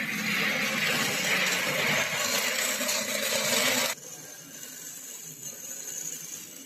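CO2-shielded MIG welding arc crackling steadily, then cutting off suddenly about four seconds in.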